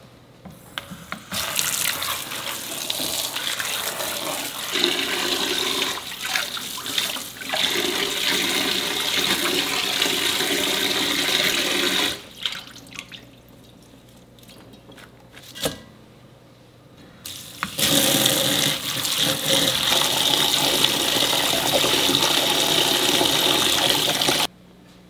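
Water from a kitchen tap running and splashing into a bowl in the sink while vegetables are rinsed by hand, in two long spells with a quieter pause of a few seconds between them; the water stops abruptly near the end.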